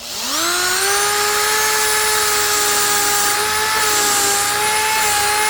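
Power drill turning a carbide-tipped countersink bit: the motor spins up with a quickly rising whine, runs steadily at high speed, and stops right at the end.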